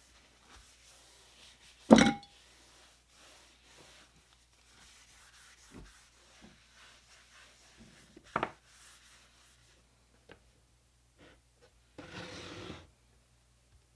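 Inner pot of a Zojirushi rice cooker being handled before cooking: a loud metallic clunk about two seconds in and a second knock about six seconds later. A short rubbing noise follows near the end as the pot is seated in the cooker.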